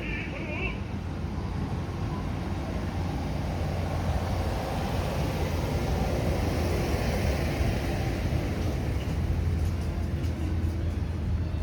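Steady low rumble of motor traffic, swelling through the middle as vehicles pass, then easing off near the end.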